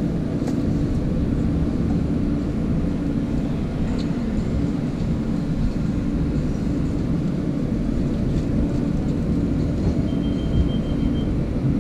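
Steady low hum inside a stopped R160 subway car, its onboard equipment running while the doors stay shut. A thin high tone sounds for about a second near the end.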